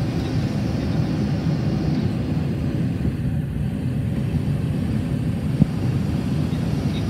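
Steady cockpit noise of a Cessna Citation XLS business jet in flight, a low, even rumble of its twin turbofan engines and airflow, with one short click late on.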